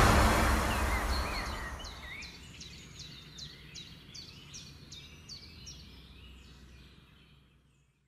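A loud sound left over from the moment before fades away over about two seconds. A songbird then sings a run of about ten quick notes, each sweeping downward, repeated a little under half a second apart and fading out before silence near the end.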